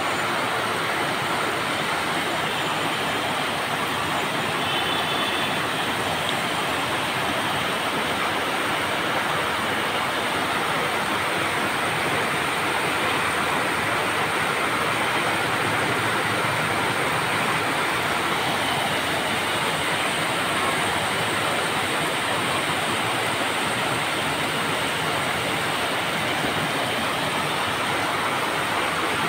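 Steady rain falling on corrugated sheet-metal roofs and a wet street, an even hiss that does not let up.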